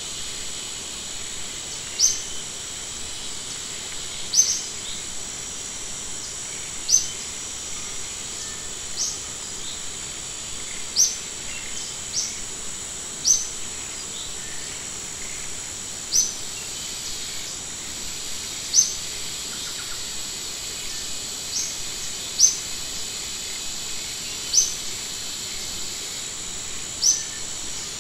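A bird giving a short, high chirp every one to three seconds, about a dozen times, over a steady high-pitched drone.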